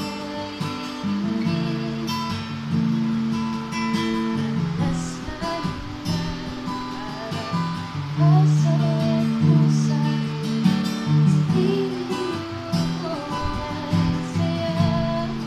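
Acoustic guitar being played: ringing chords that change every second or so, with higher melody notes over them.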